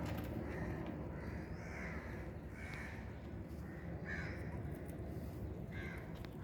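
Harsh bird calls: about five short calls spaced a second or so apart, over a low steady background hum.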